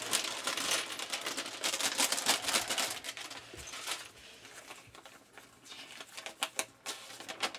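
Plastic LEGO polybag crinkling as it is handled and torn open, then small LEGO pieces clattering onto the table in scattered sharp clicks.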